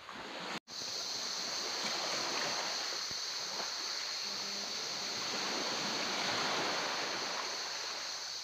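Small waves lapping and washing against a sandy bank and tree roots, a steady rushing wash of water. A steady high-pitched drone sits above it.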